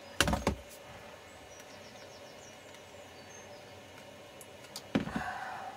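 Sharp clicks and cracks of a circuit board being levered out of a plastic e-bike battery housing, in two clusters: a few just after the start and one loud crack about five seconds in, where the board snaps.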